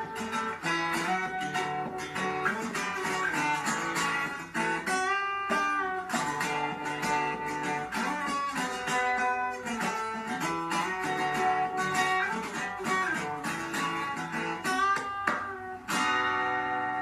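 Fingerstyle acoustic guitar playing melody and bass lines together, the player slapping the guitar body with the heel of his palm for percussive, slightly bassy beats among the plucked notes.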